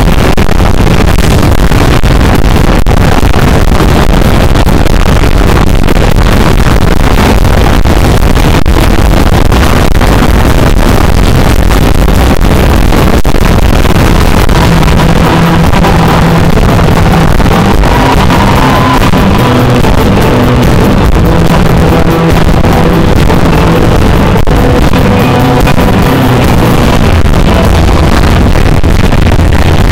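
Live rock band playing: drums, bass guitar and a singer. The camera microphone is overloaded and the sound is pinned near full level throughout. A sung melody and bass line stand out from about halfway.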